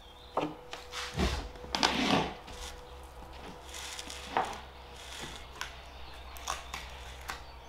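Scattered knocks, clicks and scrapes of hand tools on a wooden door as its lock and handle are being taken off.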